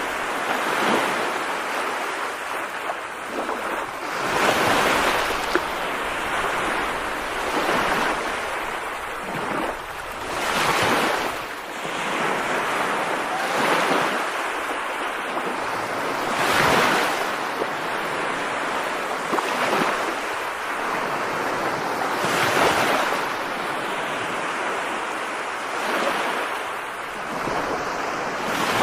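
Heavy rain as a dense rushing hiss that swells and eases every two to three seconds.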